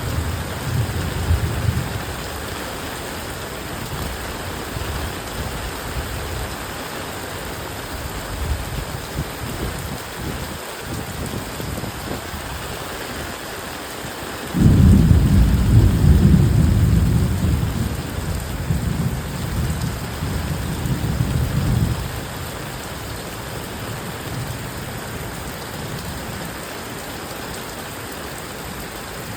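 Heavy rain falling steadily. A low rumble of thunder opens the stretch, and about halfway through a loud thunderclap breaks in suddenly and rolls on for about seven seconds before fading back under the rain.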